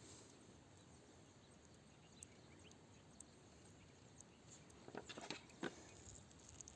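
Near silence, with a few faint clicks about five seconds in.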